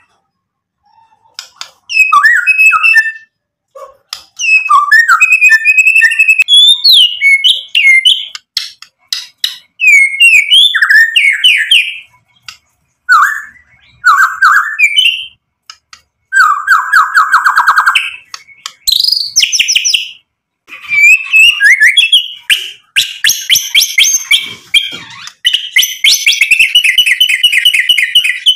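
Male white-rumped shama (murai batu) in full song: loud, varied bursts of clear whistles, quick slurred notes and chattering trills, separated by short pauses. It is a repertoire packed with learned material (isian). Near the end it breaks into a long, fast, rattling run of repeated notes.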